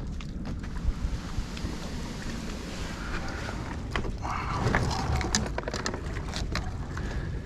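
Low rumble of wind on the microphone, with scattered clicks and knocks and a brief hiss about four seconds in.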